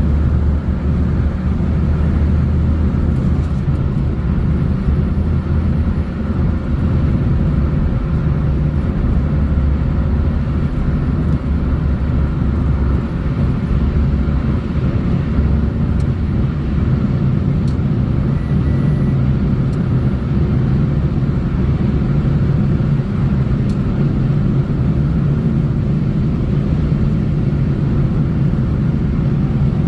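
A car driving along a road: a steady, loud low rumble of tyres and engine that holds even throughout.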